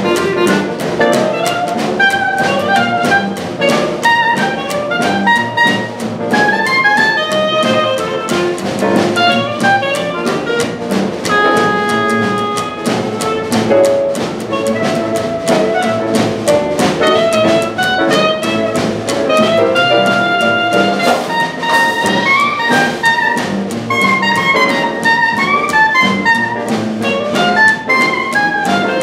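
Traditional New Orleans jazz band playing a swing tune: a clarinet solo over plucked double bass, piano and drums keeping a steady beat.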